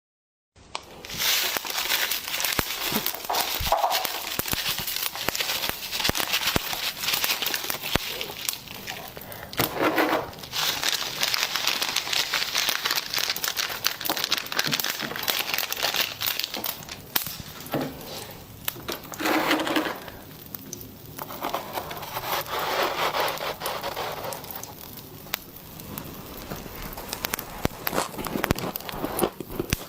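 Frost being chewed together with popping candy: dense crunching and crackling, with a few louder stretches.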